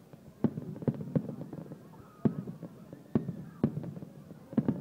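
Aerial fireworks shells bursting: a string of sharp bangs at uneven intervals, about eight in all, with two in quick succession near the end.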